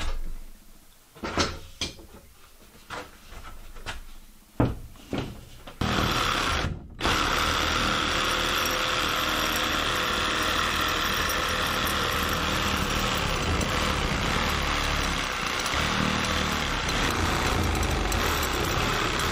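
A few scattered knocks and clatters, then a power tool's motor starts abruptly and runs steadily for about thirteen seconds, with a brief break shortly after it starts.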